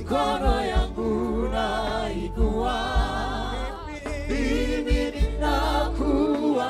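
Gospel praise and worship singing: several voices singing together into microphones over a steady low bass line and a regular beat.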